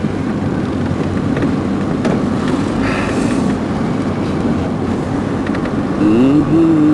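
Steady low rumble of road and engine noise inside a moving car's cabin. About six seconds in, a pitched tone rises and then holds over it.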